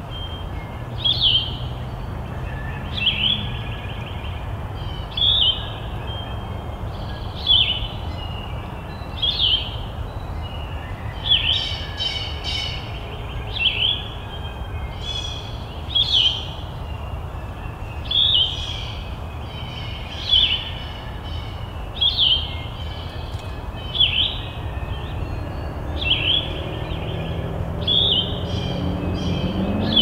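A songbird singing one short, sharp phrase over and over, about once every two seconds, over a low steady rumble.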